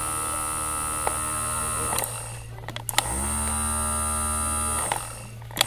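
Electronic sound from the small speaker of an O.O.T.W. Out of This World 'Techno' toy doll: a steady buzzy drone. It cuts out twice for a moment with sharp clicks, and each time it comes back it swoops in.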